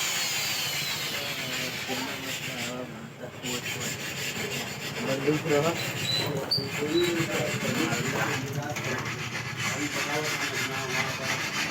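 Continuous rasping, scraping noise of a tool working metal, with a fine rapid crackle.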